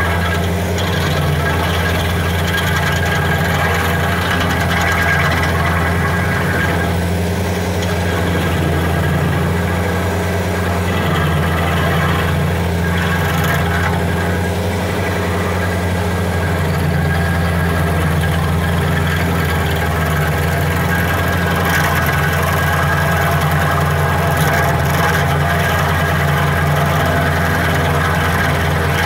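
Skid-steer loader engine running steadily at high throttle, driving a stump grinder attachment whose spinning cutting wheel chews into a tree stump and the soil around it. It is a loud, constant hum with little change.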